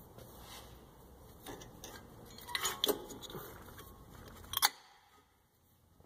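Light metallic clinks and rattles of a brake caliper and pad being handled, then one sharp click about four and a half seconds in as the new brake pad snaps into place in the caliper.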